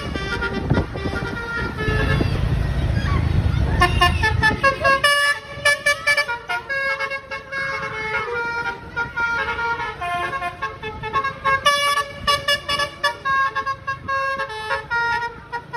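Telolet multi-tone bus horn on the Pecel Balap Bumblebee bus playing a quick tune of short stepped notes, over a low rumble during the first five seconds.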